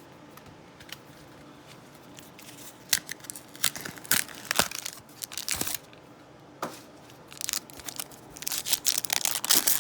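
Foil wrapper of a Magic: The Gathering booster pack crinkling and being torn open, with cards handled. The first few seconds are quiet, then come sharp crackles and tears in clusters, growing denser near the end.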